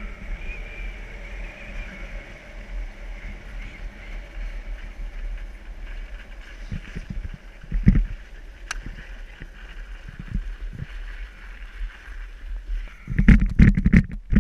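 Wind rushing over a moving camera's microphone during a fast downhill run on a mountain road, with a few low thumps. About 13 seconds in, the wind starts buffeting the microphone hard.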